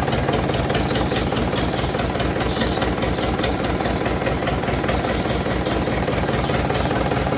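Engine driving a generator set, running steadily with an even, fast pulse.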